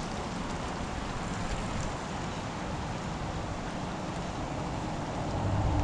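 Steady rushing of a small creek flowing over rocks. A low hum comes in near the end.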